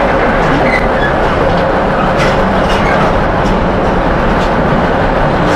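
Container wagons of an intermodal freight train rolling past: a steady rumble of steel wheels on rail, with irregular clicks as wheels cross rail joints and a few faint brief wheel squeals.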